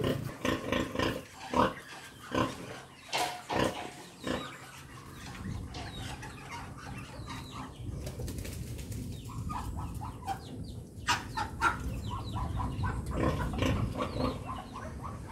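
Sow and her newborn piglets grunting, with short sharp calls in the first few seconds. Later the grunts come in quick runs, the sow's rhythmic nursing grunts as she lets down her milk.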